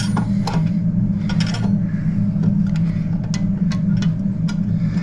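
Irregular light metallic clicks and taps from pliers and small clock parts being handled while working loose a tight part of a clock, over a loud steady low hum.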